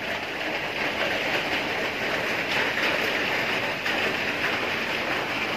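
Heavy rain falling steadily on a corrugated metal roof, an even hiss with a few faint ticks.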